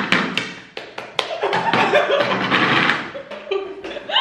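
A few sharp taps in the first second, then young women laughing loudly.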